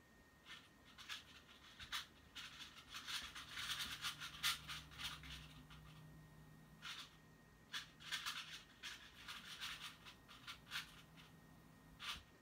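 Plastic 3x3 speed cube being turned by hand: quick runs of light clicking turns with short pauses, busiest in the first half.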